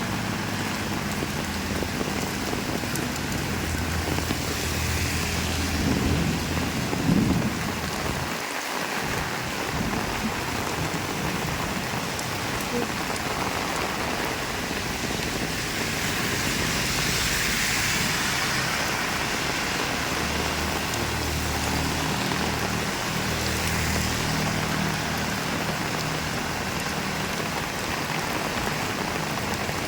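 Heavy rain pouring steadily, with low rolls of thunder rumbling underneath twice, first in the early seconds and again past the middle.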